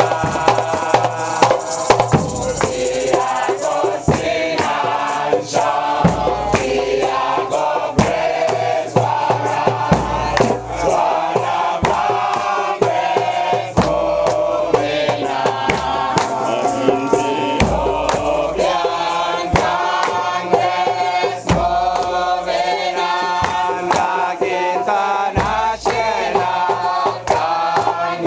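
A Rastafari congregation singing a chant together in many voices, with hand percussion beating time and a low drum thump about every two seconds.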